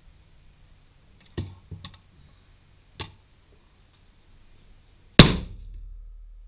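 A few clicks and knocks as the magazine is taken out of a Ruger Precision Rifle, then about five seconds in a single loud rifle shot with a ringing tail. It is the rifle going off on its own as the bolt is touched: the firing pin had hung on the sear after a trigger pull that did not release, a fault the owner traced to the titanium bolt shroud.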